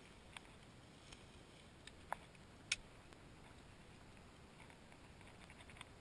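Near silence: quiet outdoor air with a few faint scattered clicks, the sharpest about two and a half seconds in.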